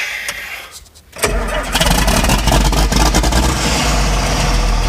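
An engine starting about a second in, then running loudly and steadily.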